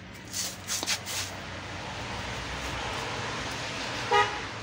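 A few light metallic clinks from tools working at a Honda CD 70's rear wheel axle, then a steady background rush of noise, with a short pitched blip about four seconds in.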